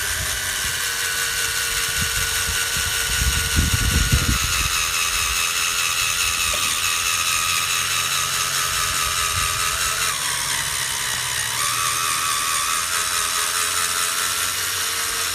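Electric drill spinning a 3000-grit sanding pad against a plastic headlight lens, its motor whining steadily. The pitch sags about ten seconds in and recovers a second or so later as the pad is pressed harder. A few low thumps come around four seconds in.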